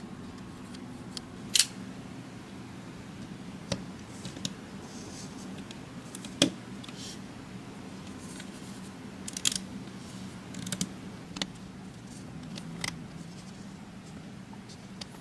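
Plastic LEGO bricks and Technic parts clicking and snapping as they are handled and pressed together: scattered sharp clicks, the loudest about one and a half seconds and six seconds in, a few in quick clusters later, over a low steady hum.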